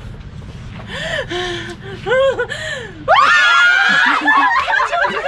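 Excited voices gasping and laughing, then a loud, high-pitched scream about three seconds in that holds for over a second before breaking into more shrieks and laughter.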